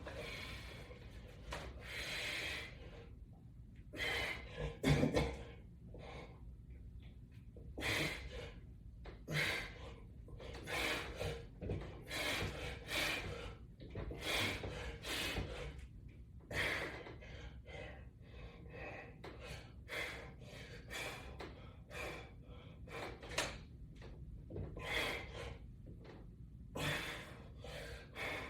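A man breathing hard with exertion as he exercises against resistance bands: short forceful breaths puffing out about once a second.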